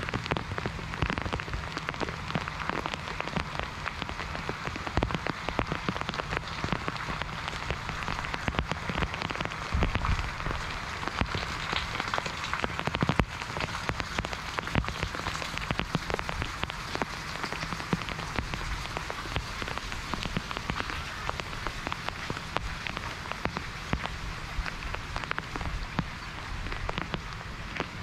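Light, steady monsoon rain falling without let-up, with many single drops ticking on surfaces close by.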